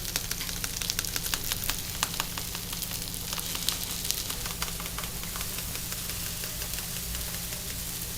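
Bungeoppang batter and filling sizzling in the hot fish-shaped moulds of a bungeoppang machine, over a steady low hum. A quick run of sharp clicks and taps sounds through the first half.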